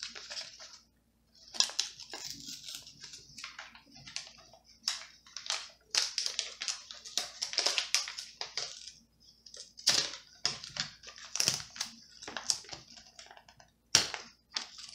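A blade cutting through sticker label paper, a run of short, irregular scratchy strokes and paper rustles. The blade isn't cutting very well and needs replacing.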